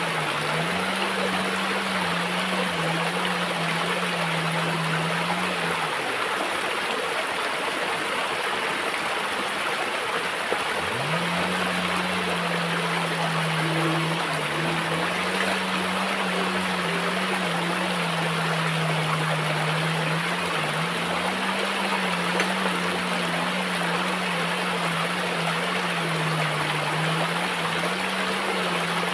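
Shallow stream running over rocks, a steady rushing and trickling of water. Under it runs a low hum that steps up and down between two pitches and drops out for about five seconds, a quarter of the way in.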